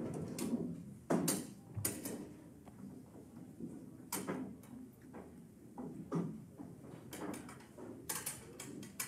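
Pool balls clicking and clacking against one another in irregular knocks as they are gathered into the rack for the next game. The loudest knock comes about a second in, and there is a quick cluster of clicks near the end.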